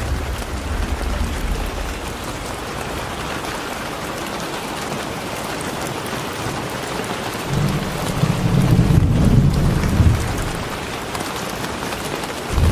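Steady rain falling with an even hiss. A low rumble of thunder swells in about seven and a half seconds in, lasts a couple of seconds, and starts again near the end.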